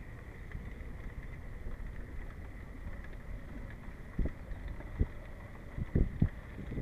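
Wind rumbling on an action camera's microphone, with a few dull footfalls on the wooden pier planks in the second half.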